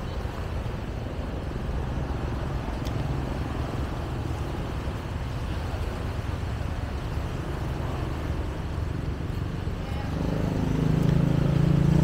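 Outdoor ambience with a steady low rumble and faint background voices. About ten seconds in, a louder steady hum comes in and holds for a couple of seconds.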